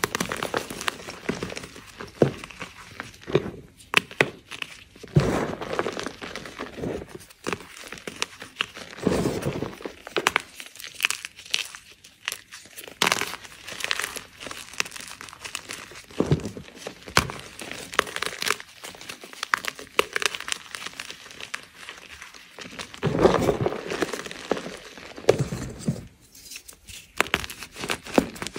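Blocks of gym chalk crushed and crumbled between bare hands: irregular crunches and crumbling, with many short sharp cracks as chunks break apart.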